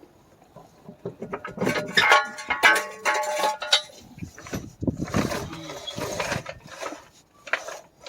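Wordless vocal noises from a person, pitched and changing in pitch, from about two seconds in until near the end, mixed with a few sharp knocks.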